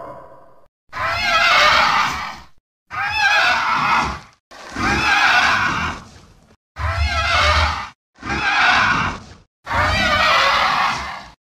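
Monster-cry sound effect for the Peluda: six wavering animal-like cries in a row, each about one to one and a half seconds long, with a short silence between each.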